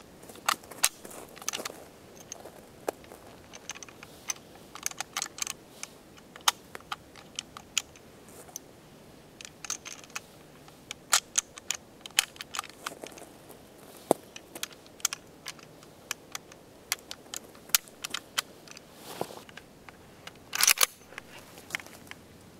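M44 Mosin-Nagant carbine being handled and readied: a long, irregular run of sharp metallic clicks and clacks from working the bolt action, with a louder rattle of clicks near the end.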